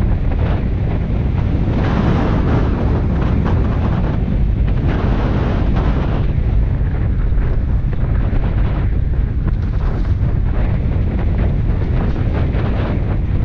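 Loud wind buffeting the microphone of a camera mounted outside a moving car, a dense rumble with gusts swelling and easing every second or two.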